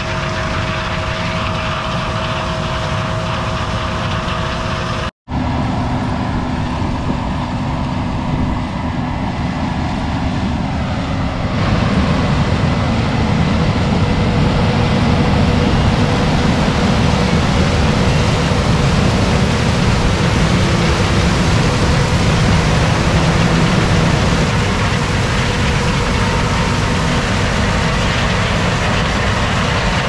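Large diesel farm machinery running steadily, with engine hum and mechanical noise. The sound cuts out briefly about five seconds in, and grows louder and rougher from about twelve seconds.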